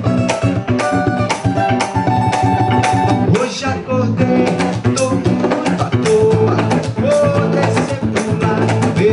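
Samba-rock band playing an upbeat song: guitar and bass over drums keeping a steady beat.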